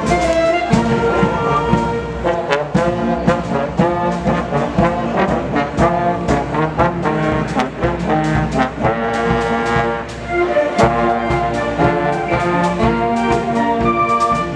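School concert band playing, with trombones and other brass prominent over flutes and woodwinds, and regular drum strokes.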